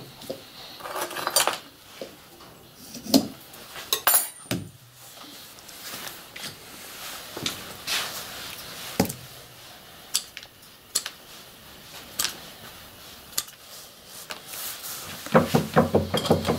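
Scattered clinks and knocks of hand tools and a twine-wrapped firework shell being handled on a workbench, with a quick run of rattling and rubbing near the end.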